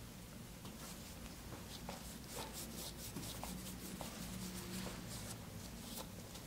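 Faint scratchy rubbing of a lint-free wipe, wet with nail dehydrator, scrubbed in short back-and-forth strokes over a fingernail and under its free edge by gloved fingers, over a faint low hum.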